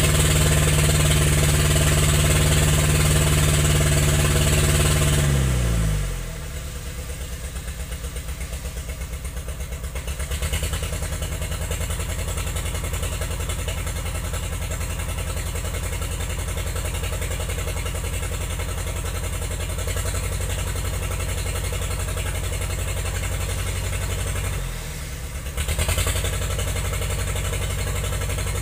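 Diesel engine of a log-skidding machine running at high revs, then dropping to a low, steady idle about six seconds in. Near the end it dips briefly and is revved up again.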